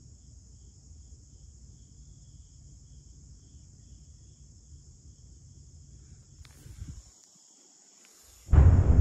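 Steady high-pitched insect chirring with a low rumble beneath it. The rumble drops away about seven seconds in, and a sudden loud deep rumble breaks in shortly before the end.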